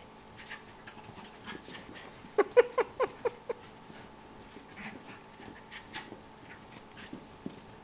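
Miniature schnauzer in rough play: a quick string of about six short barks about two and a half seconds in, with panting and scuffling around it.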